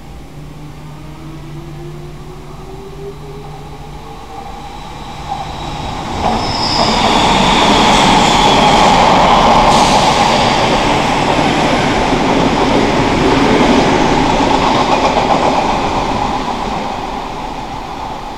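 Odakyu electric commuter train running close past on the track, its wheel and running noise building from about six seconds in, loudest in the middle and fading near the end. Before it, a faint electric motor whine rises steadily in pitch.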